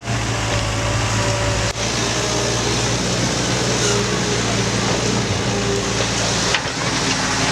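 Tracked excavator's six-cylinder diesel engine running steadily, with higher tones that shift in pitch. The sound breaks off abruptly for a moment about two seconds in and again near the end.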